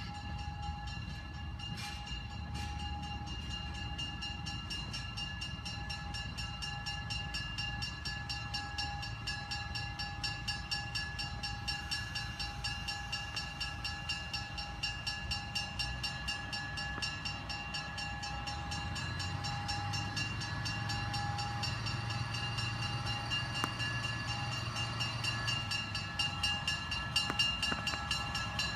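Budd Rail Diesel Car approaching on its own diesel power, the engine rumble growing louder as it nears. A steady high whine runs throughout.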